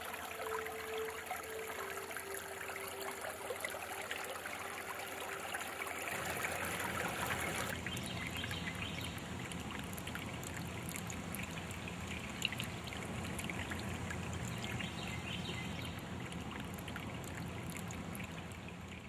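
Floodwater running steadily in a drainage canal.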